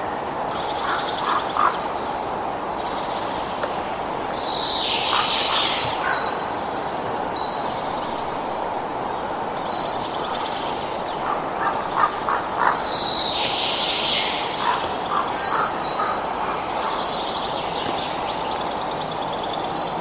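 Several wild birds calling and chirping over a steady rushing background, with short clusters of clicking calls every few seconds.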